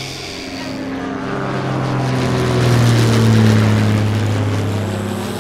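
Propeller airplane engine running steadily as it flies past. It swells to its loudest about three seconds in, then fades.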